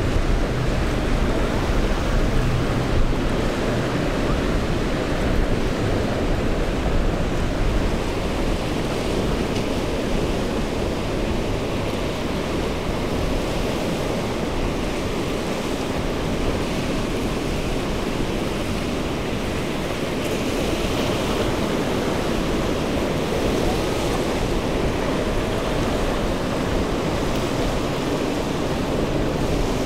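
Rough surf breaking and churning in a choppy inlet, with wind buffeting the microphone: a steady rushing noise.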